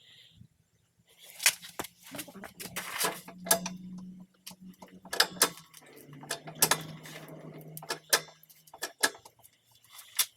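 Metal hand tools clinking and knocking in irregular sharp strikes, over a low steady hum that drops slightly in pitch about halfway through and stops shortly before the end.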